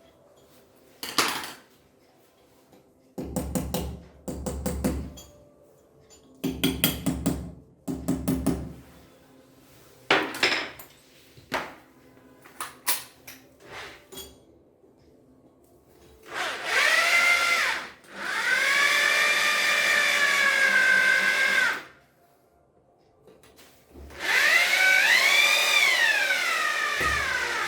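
Irregular knocks and rattling clicks, then a power drill running in three spells of a few seconds each, its whine rising and falling in pitch.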